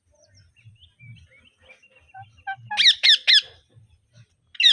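Indian ringneck parrot calling: soft scattered chirps, then three quick loud screeches in a row about three seconds in and one more near the end.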